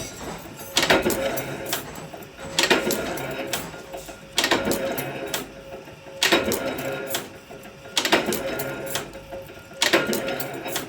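Cutlery-making machine running in a steady cycle, with a sharp metallic stroke and clatter about every two seconds over a faint steady hum.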